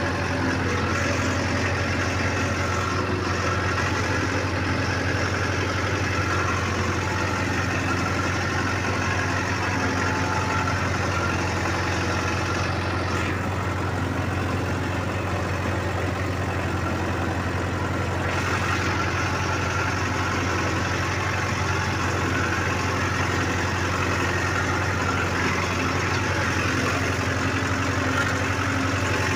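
John Deere 5078 tractor engine running steadily under load, pulling a 14-disc offset disc harrow through tilled soil.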